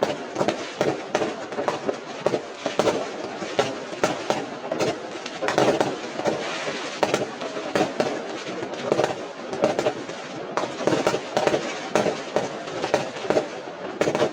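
Fireworks going off: a rapid, irregular run of sharp bangs and crackles, several a second, over a continuous hiss and rumble.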